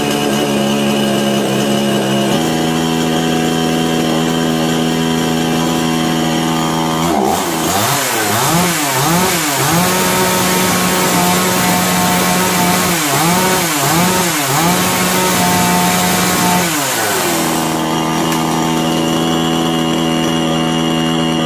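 KisanKraft KKC SP6522 two-stroke chainsaw engine running on a test after its carburetor has been tuned. It idles steadily, is revved up and down several times from about seven seconds in with short holds at high speed, and settles back to a steady idle near the end.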